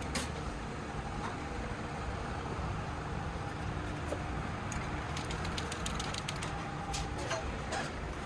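Steady workshop background noise with a low rumble, and a run of light clicks and ticks in the second half.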